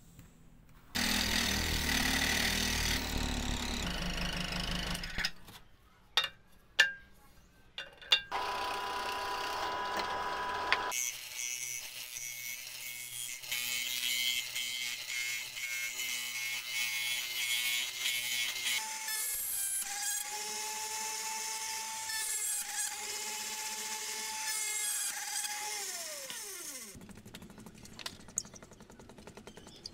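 Workshop power tools on wood: a stationary disc sander grinding the rim of a small round wooden wheel, with a few sharp clicks in between. Later a flexible-shaft rotary tool whines steadily and spins down when switched off near the end.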